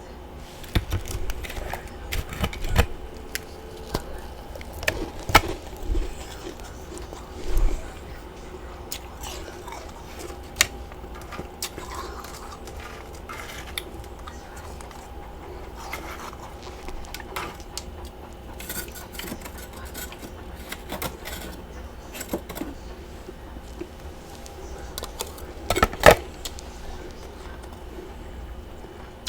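Close-up chewing and crunching of large chunks of freezer frost, in irregular crunches with short pauses. The loudest bites come about five seconds in and again near the end.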